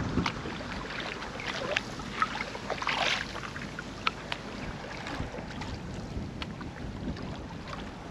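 Canoe being paddled: the paddle dipping and splashing in the water, with small irregular knocks and water lapping at the hull, and a louder splash about three seconds in.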